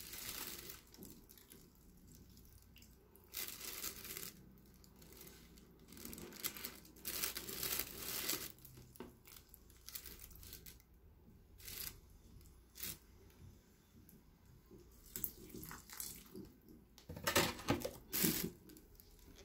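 Water poured from a plastic watering can onto potting soil in a plastic pot, in several short pours with pauses between, while a freshly potted plant is watered in.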